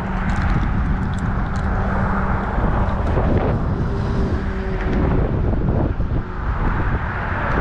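Strong wind buffeting the microphone, with a steady low hum through the first few seconds.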